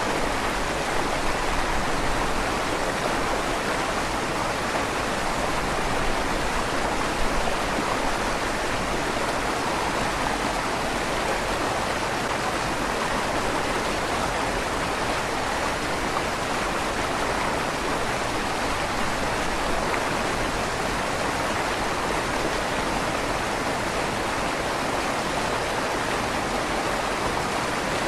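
River water flowing steadily through the tunnel under a stone bridge, an even rushing with a slight echo off the stone.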